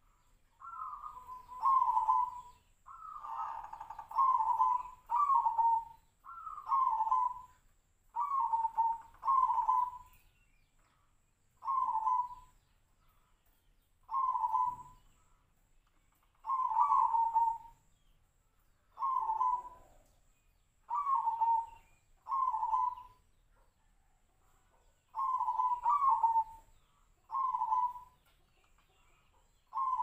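Zebra dove (perkutut) cooing in short, clipped phrases, singly and in pairs, repeated every second or two with short pauses. It is an unusual half-beat coo that its keepers liken to the call of the sirtu bird.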